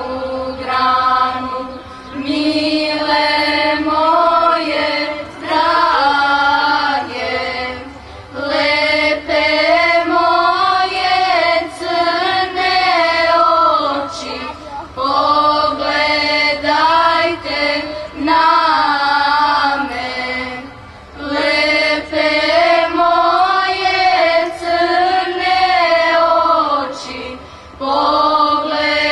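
Children's and youth choir singing a cappella, in phrases of a few seconds each with brief breaths between them.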